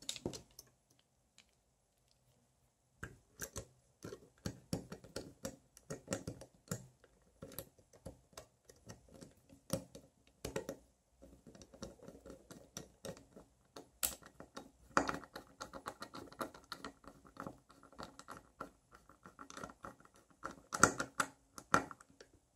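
Small screwdriver driving tiny screws into the plastic power-supply housing of an LED floodlight, with irregular light clicks and scrapes of the driver tip and handled parts. It starts about three seconds in, after a near-silent pause, and grows busier around the middle and near the end.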